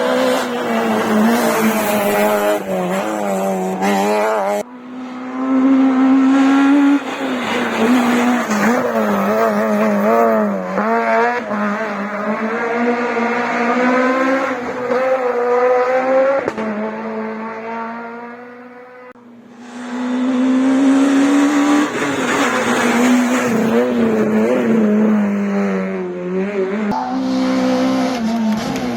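Rally cars at full attack on a tarmac stage, engines revving hard up and down through gear changes and corners, with tyre squeal. The sound cuts from one car to the next twice, and one car fades away before the next arrives.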